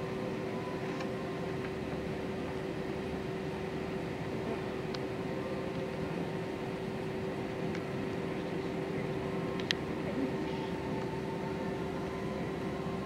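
Steady hum inside an airliner cabin on the ground, the plane's running engines and air conditioning giving an even drone with one steady tone. A couple of faint clicks come partway through.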